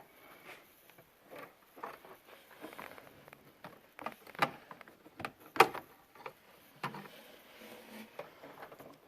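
Irregular light clicks and knocks of hands and metal working inside a pickup truck door, fishing for a bolt dropped inside it, with a sharper knock about four and a half seconds in and another, the loudest, about five and a half seconds in.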